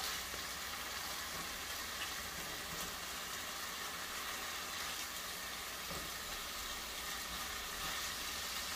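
Stir-fry sizzling steadily in a hot pan.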